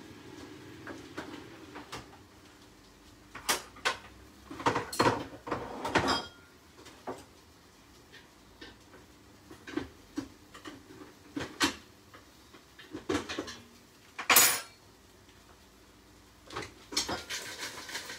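Kitchenware being handled: scattered clinks and knocks of pans, dishes and utensils, with a cluster of them about four to six seconds in and a sharp clatter around fourteen seconds in.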